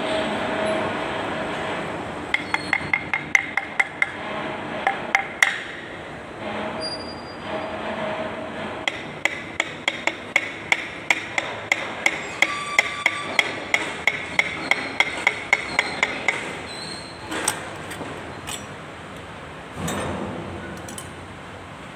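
A Kubota Z851 piston is being tapped down through a steel ring compressor into its cylinder bore with a wooden handle. The light taps come in two runs, the second a steady three or four a second, followed by a few separate knocks.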